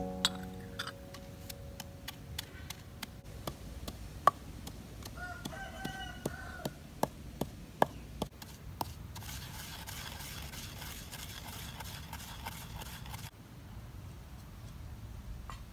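Wooden pestle pounding in a clay mortar: sharp, irregular knocks, one or two a second, which stop about nine seconds in. A rooster crows once in the background about five seconds in.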